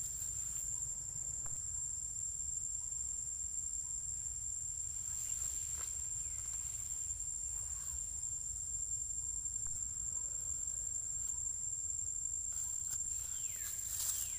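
Steady high-pitched drone of insects, with a steady low rumble underneath and a few faint brief sounds near the end.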